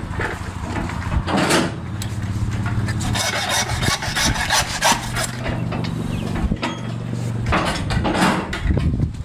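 A knife rasping and scraping through meat and fat on a hanging beef carcass, in a run of strokes. A steady low machine hum sounds under it from about two seconds in until nearly eight seconds.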